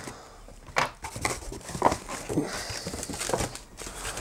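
Cardboard box flaps being folded open and crumpled brown kraft packing paper rustling under the hands, in irregular crackles and scrapes, the loudest about a second and two seconds in.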